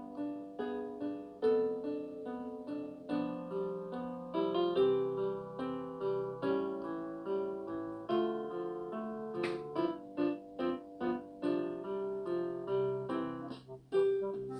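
Background music: plucked guitar and piano playing a steady, gentle melody.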